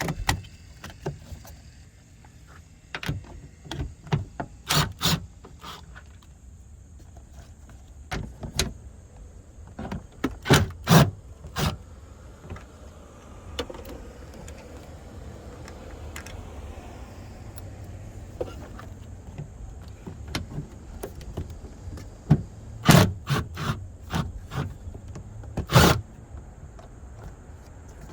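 Scattered clicks and knocks of hand work on car parts, in loose clusters, over a faint steady hiss.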